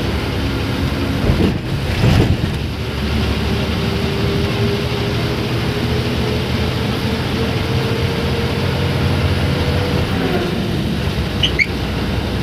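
Bus engine and drivetrain running while the bus drives, heard from inside the cab: a steady low drone with a whine that slowly rises in pitch. Two thumps come about one and a half and two seconds in, and a short high squeak near the end.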